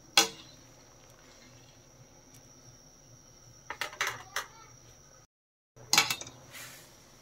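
Wire spider skimmer clinking against a metal kadhai while boiling macaroni is stirred: one clink, then a cluster of clinks about four seconds in and another about six seconds in, over a faint steady hiss.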